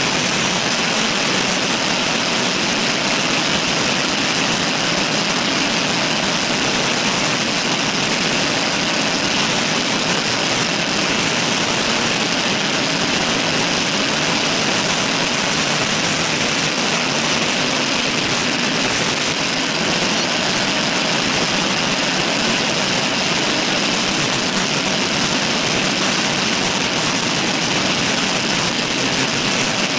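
Steady rushing of wind and road noise on a bicycle-mounted camera's microphone while riding at speed, an even hiss with no break or change.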